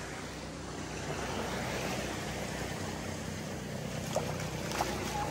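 Steady rushing of water and wind outdoors, with a few faint ticks near the end.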